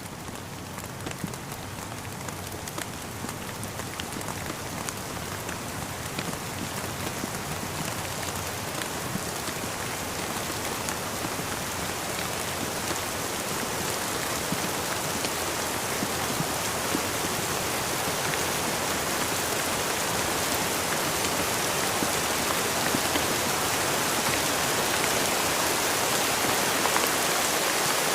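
Steady rain falling, with many small drop ticks over an even hiss, gradually growing louder.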